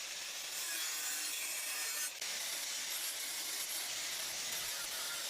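A hand tool working wood, making a steady rasping, with a brief break about two seconds in.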